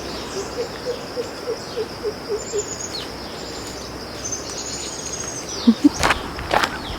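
A bird calling a run of about ten short hoots, some four a second, each dropping slightly in pitch, over a steady high insect buzz. A few sharp knocks come near the end.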